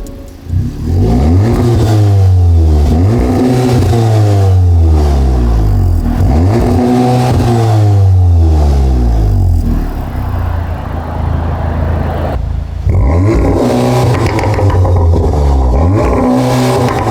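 MK7 Golf R's 2.0-litre turbocharged four-cylinder engine, breathing through a Milltek non-resonated exhaust, revved up and let fall again and again, with a brief break about twelve seconds in.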